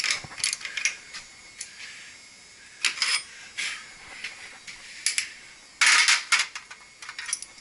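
Metal hand-tool and pipe-fitting work: a quick run of ratchet-like clicks at the start, then scattered clicks and a short, louder metallic rattle about six seconds in.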